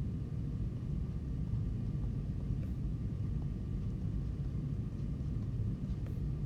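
Steady low rumble of room background noise, with a couple of faint taps from a stylus writing on a tablet screen.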